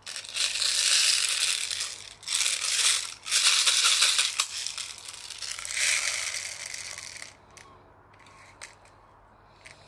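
BBs rattling in an airsoft pistol magazine while it is being loaded and shaken, in several bursts that die down to a few faint clicks over the last few seconds. The loading is going badly: the magazine is hard to fill.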